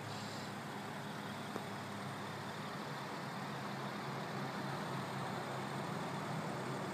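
A car engine idling steadily, an even low hum. There is one faint click about one and a half seconds in.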